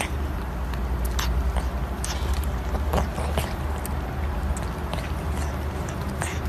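Kitten lapping milk from a bowl: irregular small wet clicks and smacks over a steady low hum.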